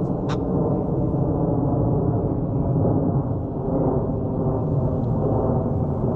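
Jet aircraft engines making a loud, steady, deep rumble, with one short click about a third of a second in.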